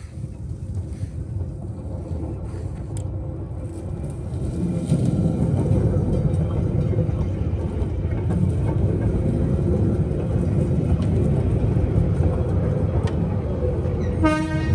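A vehicle running with a steady low rumble that grows louder about four and a half seconds in and then holds steady. A short pitched sound comes near the end.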